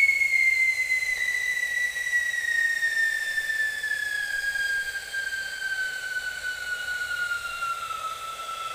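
Giant whistle bomb firecracker whistling as it burns: one long whistle that slides slowly down in pitch and fades a little.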